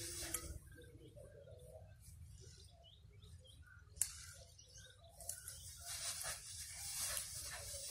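Small birds chirping in the background. A single sharp click comes about four seconds in, and a rustling hiss builds up in the second half.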